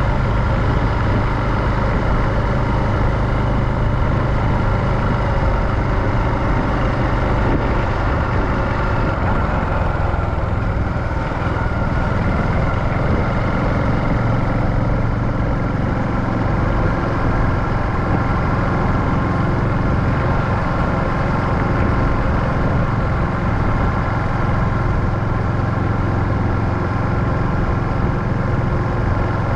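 Honda Super Cub JA59's small single-cylinder four-stroke engine running steadily while the bike is ridden, with a low rumble under the engine note.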